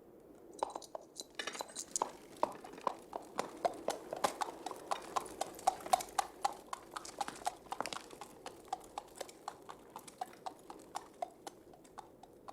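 A cab horse's hooves clip-clopping on a hard street at a steady trot, starting about half a second in and growing fainter in the second half as the cab moves off.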